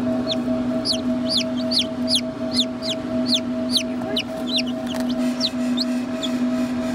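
Newly hatched chicks peeping in an incubator: a run of short, high, falling peeps, about two a second, over a steady low hum.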